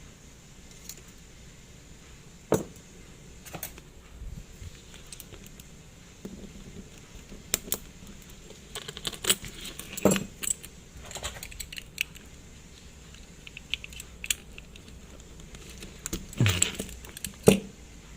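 Small metal clicks, taps and scrapes of watchmaker's tools working on a Seiko Kinetic 5M43 wristwatch, scattered irregularly, with a busier flurry of clicks near the end.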